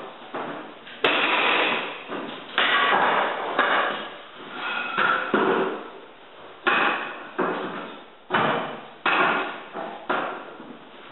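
Pneumatic flooring nailer driving nails into hardwood floorboards. About a dozen sharp bangs at uneven intervals of about a second, each dying away over half a second or so.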